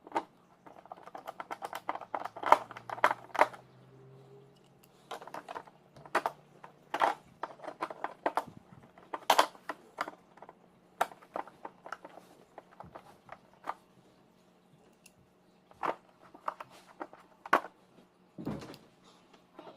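Irregular sharp plastic clicks and knocks as the cover and parts of a Bissell vacuum are handled and fitted back into place, with a faint steady hum underneath.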